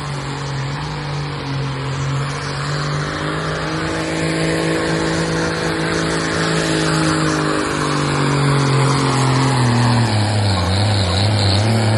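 Case 970 tractor's diesel engine running flat out, pulling a weight-transfer sled, with a steady note that grows louder as the tractor comes closer. About ten seconds in the engine note sags as it bogs under the load, then climbs again near the end.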